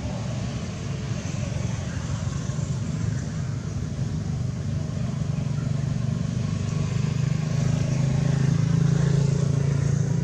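A motor engine running with a steady low hum, growing louder in the second half.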